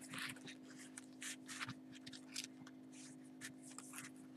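Paper pages and envelopes of a handmade scrapbook album being handled, giving a string of short, faint rustles and scrapes over a steady low hum.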